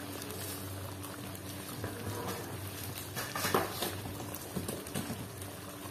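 Thick chilli sambal bubbling and popping as it simmers in a wok, with a couple of brief knocks about three and a half seconds in.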